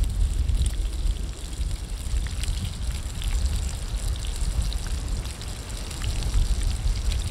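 Bacon sizzling in a pan over a small twig-burning Firebox stove, with scattered little pops and crackles throughout, over a steady low rumble.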